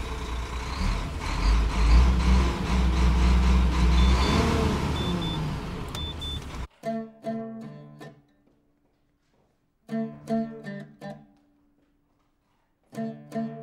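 Heavy truck engine running, heard from inside the cab, with a few short high beeps about four seconds in. It cuts off abruptly and an oud follows, plucked in short phrases with pauses between them.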